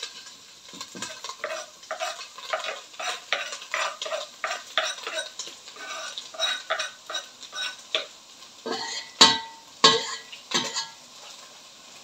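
Wooden spatula stirring and scraping meat, onion and garlic frying in an enamel pot, in quick repeated strokes over a light sizzle. About nine seconds in come three or four louder knocks.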